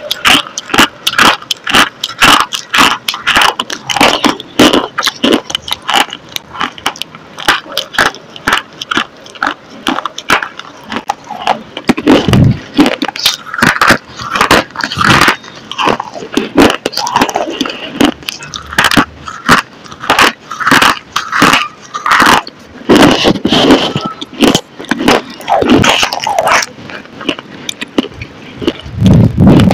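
Crunching and chewing of a crumbly white substance right at a microphone: dense crisp crunches several times a second, with wet mouth sounds between them.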